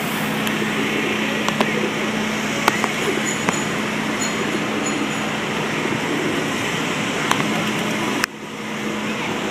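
Busy city-street ambience: steady traffic noise with a constant low hum and a few faint ticks, dropping suddenly near the end and then building back.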